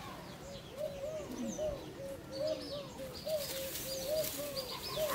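Birds calling: a steady run of short rising-and-falling notes, several a second, with fainter high chirps joining about halfway through.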